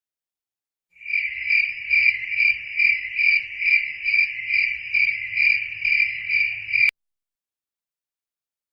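Cricket chirping sound effect: a high, steady trill that pulses about twice a second, starting about a second in and cutting off abruptly near the end.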